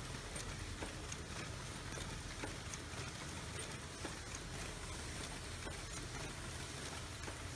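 Automatic ball pen assembly machine running: a steady low hum with an uneven stream of light mechanical clicks, several a second, from its moving parts.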